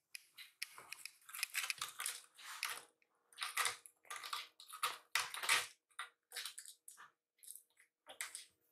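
A kitten's claws scratching and raking at a sisal-rope scratching post: a run of short raspy scratches with brief pauses between them.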